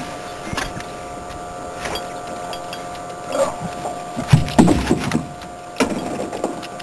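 Knocks and thumps on a boat while a hooked northern pike is fought alongside on a bent rod, over a steady whirring hum. The loudest cluster of thumps comes a little past halfway.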